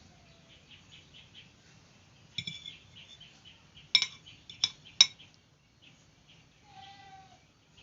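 A metal utensil clinking against a cooking pot: four sharp clinks with a short ring, the loudest two about four and five seconds in. A short pitched bird call near the end.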